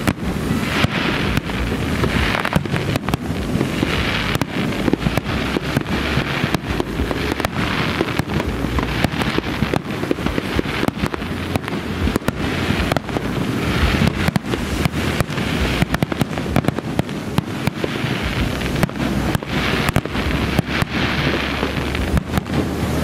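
Aerial firework shells bursting in a continuous barrage: rapid, closely packed bangs and crackling over a steady low rumble.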